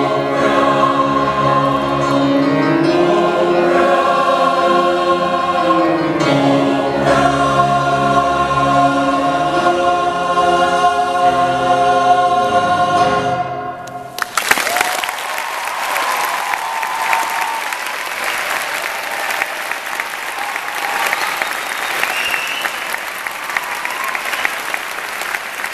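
Mixed choir singing the closing bars of a piece, building to a held final chord that cuts off together about thirteen seconds in. The audience then applauds steadily.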